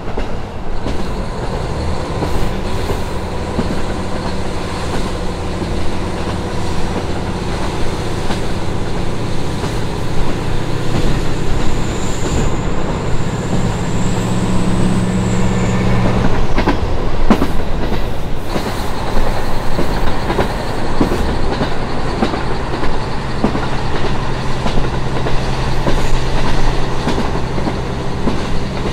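Inside a KiHa 40 diesel railcar under way: the diesel engine's steady drone over continuous wheel and rail running noise with clickety-clack. A thin high whine rises briefly before the engine note drops away a little past halfway, leaving sharp clicks from the wheels and rail joints. The engine drone comes back near the end.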